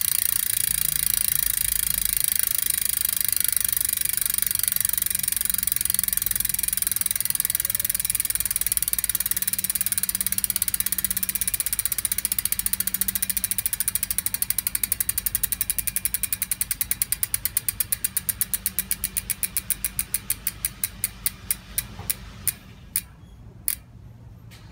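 Campagnolo Bora Ultra 50 freehub clicking as the rear wheel freewheels and coasts down on its CULT ceramic-bearing hub. It starts as a fast, continuous buzz of clicks that slowly spreads into separate clicks, further and further apart. The last few come about half a second apart, and the clicking stops shortly before the end.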